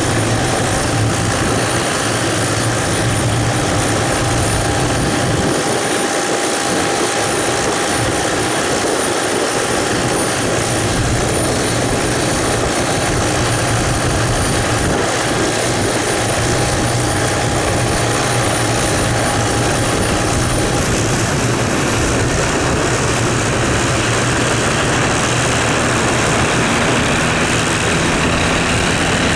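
MD530F helicopter running steadily, its turboshaft engine giving a high whine over the rotor noise. About two-thirds of the way through, the whine steps up slightly and begins to rise in pitch.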